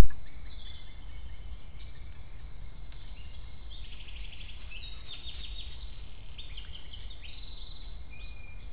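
Small woodland songbirds calling and singing, with several short chirps and fast trills over a steady low rumble. A sharp click right at the start, the loudest sound, where the trail camera's recording begins.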